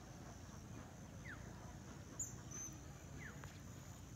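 Quiet lakeside ambience: a few faint, short falling bird chirps about two seconds apart and one brief high chirp in the middle, over a steady high-pitched insect-like buzz and low rumble.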